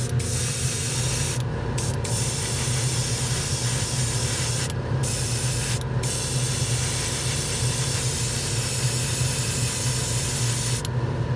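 Airbrush spraying thinned gloss black lacquer paint: a steady hiss of air and paint, broken by about four short pauses as the trigger is let off, and stopping shortly before the end.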